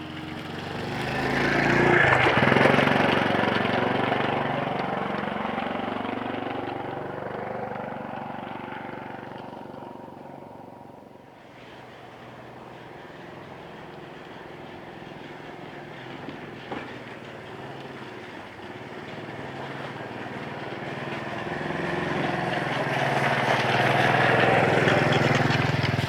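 Motor vehicle passing by: its engine note swells to a peak about two seconds in, then drops in pitch and fades away over several seconds. A second pass builds and peaks near the end.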